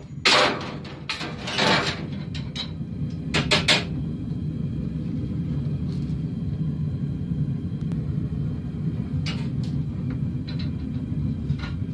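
Forge running with a steady low roar while the blade reheats, with a few metallic clanks in the first four seconds.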